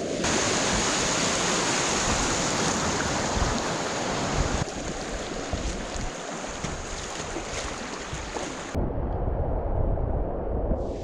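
Rushing river water, a steady dense rush of noise, whose character changes abruptly twice, near the middle and again about two-thirds of the way in.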